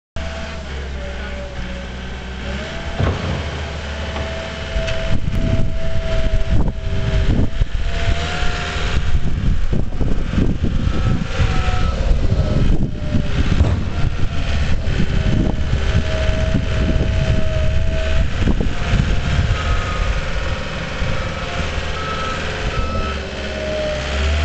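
John Deere 244J compact wheel loader's diesel engine running under load, its pitch rising and falling as it works, with the bucket scraping and knocking as it pushes snow across the pavement. A backup alarm beeps briefly twice.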